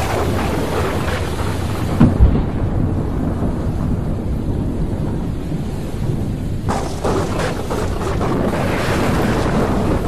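Thunderstorm with steady rain and rumbling thunder: two sharp thunder cracks about two seconds in, then a long rolling peal building from about two-thirds of the way through.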